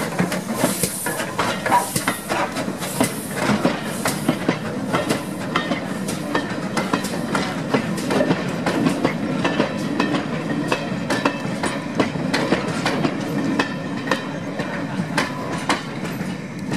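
Pannier tank steam locomotive L94 working a train of Pullman carriages past at low speed. For the first few seconds its exhaust chuffs about once a second, then the carriages roll by with a steady run of wheel clicks over the rail joints.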